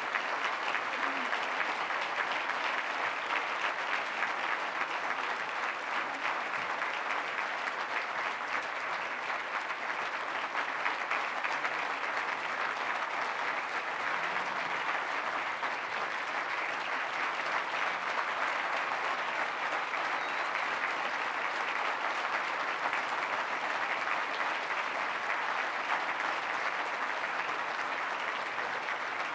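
Audience applauding steadily, a long, unbroken round of clapping from many people.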